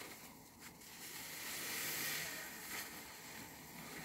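A new foam car sponge, heavy with soap lather, squeezed and kneaded by hand over a basin of soapy water: wet squishing and hissing of sponge and suds, swelling to its loudest about two seconds in.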